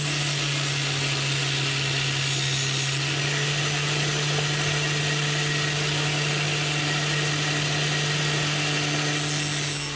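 Electric angle grinder running steadily with a sanding disc while a small piece of wood is held against it, under a constant hum. It stops right at the end.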